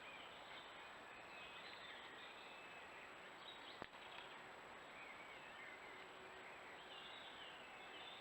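Faint birdsong, short warbling phrases recurring over a steady hiss, with one sharp click about four seconds in.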